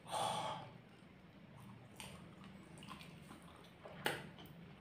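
A person eating fiery-hot chilli-soaked egg rolls: a loud sharp suck of breath through the mouth at the start, then quiet wet chewing and mouth noises, with a sharp click about four seconds in. The hissing intake is the eater's reaction to the chilli burn.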